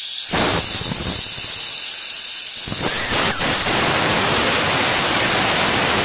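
Compressed air hissing loudly from a blow-gun nozzle as it is blown through a carburetor's venturi, drawing the fuel out of it as a mist. A high whistle rides on the rush of air, which grows fuller about three seconds in.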